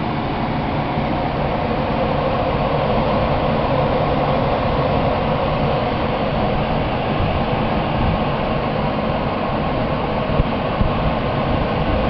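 PSC blower motor, salvaged from an old Trane blower housing and wired to its high-speed tap as a temporary stand-in for a failed ECM motor, running steadily: a constant rush of air over a low hum.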